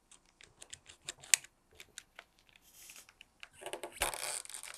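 Razor-blade utility knife cutting a rubber stabilizer plug: a run of small clicks and scratches, one sharper click about a second in, and a denser scraping near the end.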